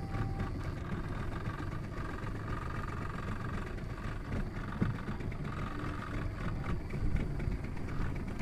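A boat engine idling with a steady low rumble, with a few light knocks.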